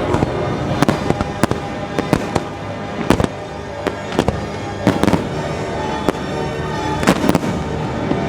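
Fireworks going off in irregular sharp bangs, a couple a second, over the fireworks show's music soundtrack playing steadily underneath.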